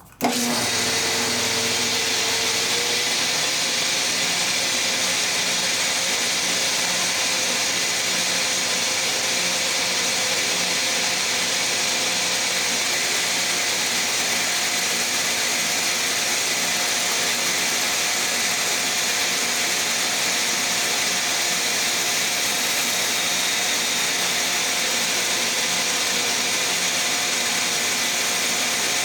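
Shopsmith bandsaw switched on, coming up to speed with a rising hum over the first couple of seconds, then running steadily at full speed with a loud, even whir.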